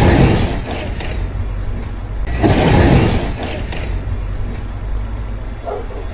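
Delivery step van running as it drives off across a yard, a steady low engine rumble under a noisy wash that swells louder twice, at the start and about two and a half seconds in.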